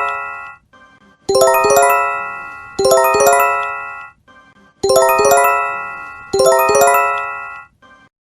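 Japanese J-Alert emergency warning chime: a quick run of bright bell-like notes that rings out and fades, struck in pairs, twice.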